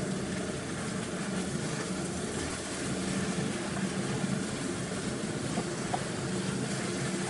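Wild leeks, bacon and chili cooking in a frying pan, a steady hiss that sounds more like boiling than frying as the wet leeks give off water, over a steady low hum.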